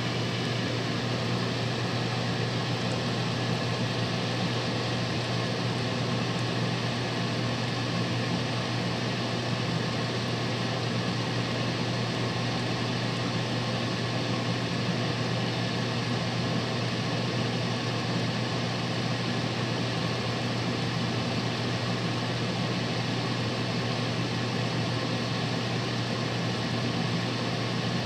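Fish steaks sizzling steadily as they shallow-fry in oil in a nonstick pan, over a constant low hum.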